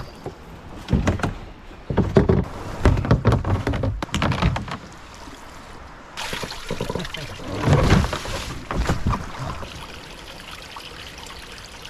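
Irregular hollow knocks and thumps of a plastic Liquidlogic Remix XP10 whitewater kayak being grabbed and hauled against the bank, with water splashing and trickling as the swamped boat is lifted.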